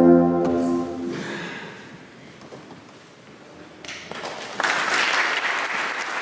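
A held chord from alphorns and brass cuts off about half a second in and dies away in the church's echo. After a quiet pause, the audience breaks into applause, loud from about four and a half seconds in.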